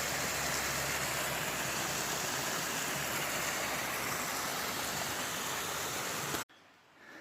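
Waterfall rushing steadily, a dense, even wash of falling water that cuts off abruptly near the end.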